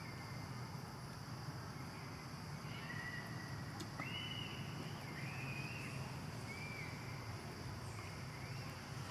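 Baby monkey giving a series of short, high, thin whistling coo calls, some rising then holding, about one a second, over a low steady background hum.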